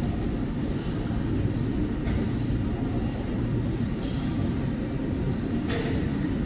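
A steady low rumble, with three faint short clicks about two seconds apart.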